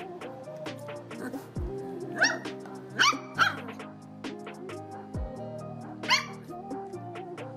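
Puppy yipping: four short, high yips, three close together about two to three and a half seconds in and one more about six seconds in, over background music.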